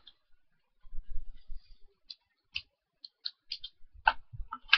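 Plastic pieces of a 5x5 puzzle cube clicking as it is handled and its popped-off centre cap is worked back in. There are low bumps about a second in, then a run of short, sharp clicks in the second half.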